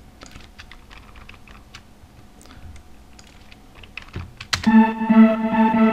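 Scattered faint computer keyboard and mouse clicks, then about four and a half seconds in a loud synth melody starts playing back and holds through the end.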